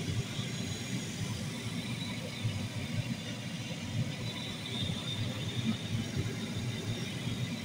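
Newly fitted A/C blower motor of a Komatsu PC400 excavator running steadily: a continuous low rumble with a hiss of moving air above it. The replacement blower is working properly.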